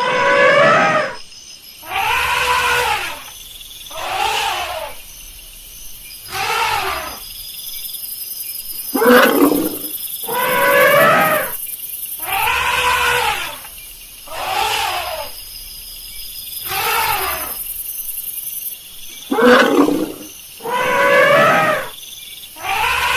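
Elephant trumpeting: a series of about eleven loud calls, each about a second long and rising then falling in pitch, one roughly every two seconds.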